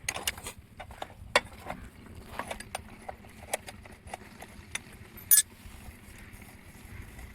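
Irregular metallic clicks and knocks, with one sharper, brighter clink about five seconds in, as tools and parts are handled on a stopped Lister diesel water-pump set during repair.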